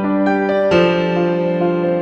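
Background piano music, gentle and slow, with a new chord struck about three-quarters of a second in.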